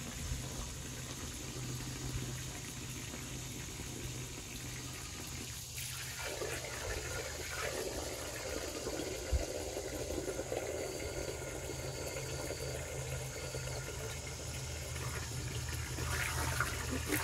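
Garden hose running, its stream of water splashing steadily into a livestock water tub; the rushing sound grows fuller about six seconds in.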